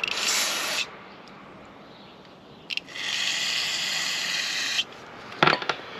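Aerosol carburetor cleaner sprayed through its straw onto a small brass carburetor jet in two hissing blasts, a short one at the start and a longer one of about two seconds from about three seconds in, blasting green crud out of the jet. A few light clicks follow near the end.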